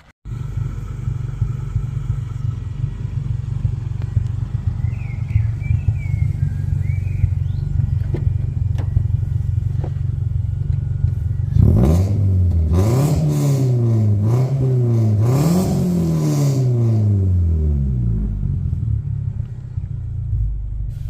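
Toyota Celica GT's 2.0-litre four-cylinder engine idling steadily, then revved up and down about three times before settling back to idle. It is running to test a leaking exhaust joint that has just been refitted with a new band clamp, which the owner doubts will seal.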